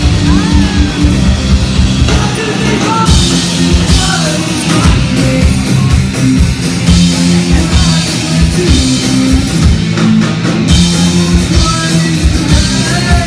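Live rock band playing loudly: distorted electric guitars, bass guitar and a drum kit with cymbals.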